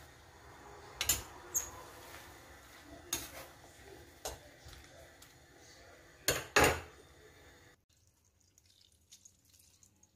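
A stainless steel pot of greens boiling on a gas stove: steady noise of the boiling water with several sharp metallic knocks and clinks, the loudest a pair about six and a half seconds in. The sound drops to almost nothing about eight seconds in.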